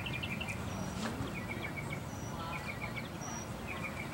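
A small bird chirping in quick runs of four or five short notes, repeated about every second, over steady outdoor background noise.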